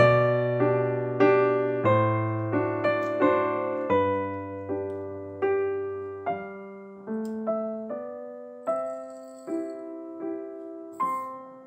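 Background piano music: a slow melody of struck notes, each one fading, over low bass notes that drop out about halfway through.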